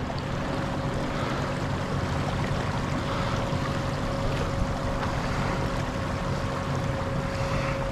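Kayak moving under power from a Newport Vessels NK180 Pro electric kayak motor: steady rush of water along the hull with a faint, even motor whine.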